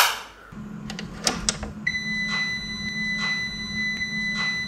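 A wall electrical switch clicked on, followed by a low steady hum and a run of sharp clicks as TV remote buttons are pressed. About two seconds in a steady high-pitched tone starts and holds.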